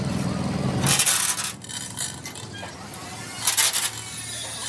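A low steady engine-like hum stops abruptly about a second in. It is followed by two short bursts of metal scraping and clinking, the second about three and a half seconds in.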